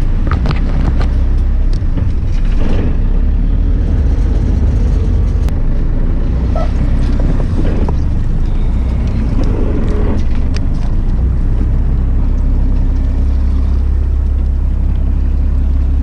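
Fishing boat's engine running steadily, a low hum under a haze of water and wind noise. In the first few seconds there are scattered rustles and clicks from the umbrella hat being handled.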